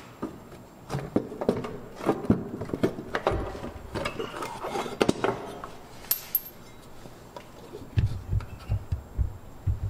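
Scattered clicks and metallic knocks as a driveshaft's slip yoke is worked out of the transmission by hand. Near the end come a few dull low thumps as a plastic plug is pushed into the transmission's output-shaft opening.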